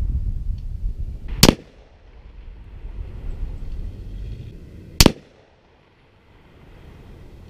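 Two rifle shots about three and a half seconds apart, from a Savage MSR 15 Recon AR-15 firing Federal .223 69-grain match ammunition, each a single sharp crack. A low rumble runs under the first shot and fades before the second.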